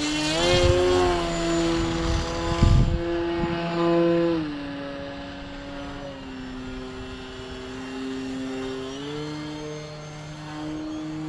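Electric motor and propeller of a Flex Innovations Mamba 10 radio-controlled aerobatic plane in flight: a steady buzzing tone that drops in pitch after about four seconds as the throttle eases, then climbs again a few seconds later.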